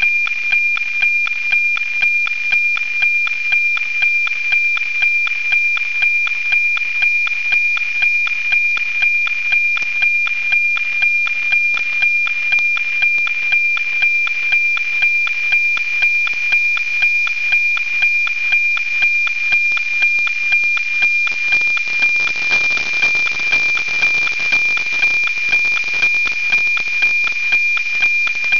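NOAA 19 weather satellite's analog picture-transmission (APT) signal as received by radio: a steady high tone with a tick-tock beat about twice a second, each tick one scan line of the image. About two-thirds of the way through, more hiss comes in under the tone.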